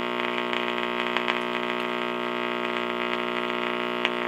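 RCA Victor 4-X-555 tube radio's speaker giving a steady hum with scattered faint crackles and a sharper pop near the end. The owner takes the crackling for silver mica disease in the capacitors inside the IF transformer cans.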